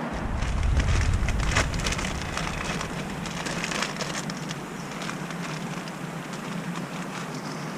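Wood campfire crackling and snapping with frequent sharp pops over a steady hiss. A low rumble sits under it for the first two seconds.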